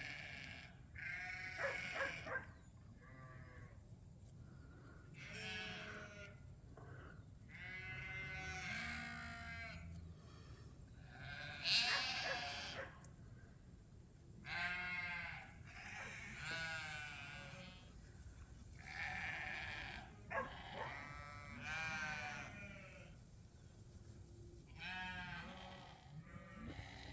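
Lambs bleating, about a dozen separate calls one after another, several of them quavering, with the loudest about halfway through.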